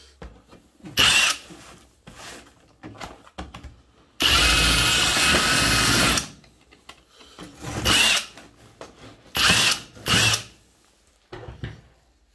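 Parkside cordless impact wrench run in short bursts against a cardboard box, with one longer steady run of about two seconds about four seconds in.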